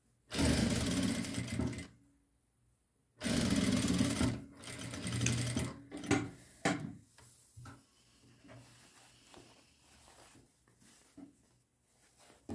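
Jack industrial sewing machine stitching in two short runs of about a second and a half each, separated by a brief pause, closing the last open bit of a lining seam. Afterwards there is softer rustling and a few light knocks as the cloth is handled.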